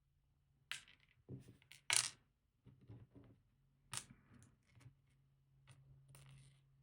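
Sharp clicks and light metallic taps of small lock parts being handled while a pin-tumbler cylinder is taken apart: pins, springs and tweezers knocking on the cylinder and the work surface. The loudest click comes about two seconds in.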